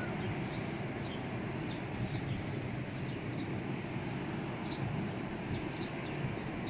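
Small birds chirping, short high notes about twice a second, over a steady low rumble.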